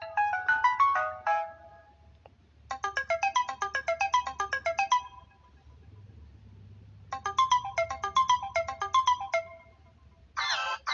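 A Samsung Galaxy Pocket's stock phone tone plays: a quick melody of bright, bell-like notes, repeated three times with short pauses between. Near the end a different tone begins.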